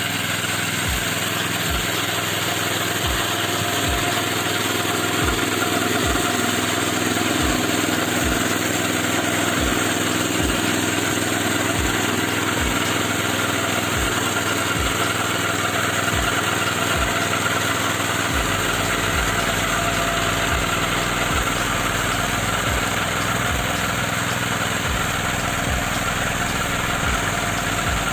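Petrol engine of a walk-behind tractor running steadily, driving a rotary mower through tall grass.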